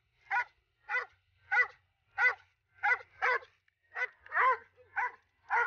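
Large dog barking repeatedly in short, evenly spaced barks, about two a second.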